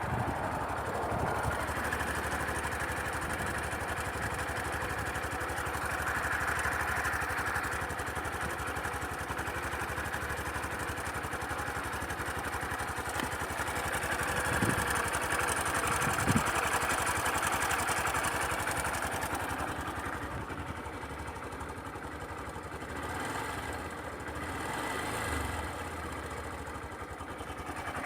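Sundiro Honda CBF125T's single-cylinder engine running, its speed swelling and easing a few times, with the clattering timing-chain noise the owner is recording.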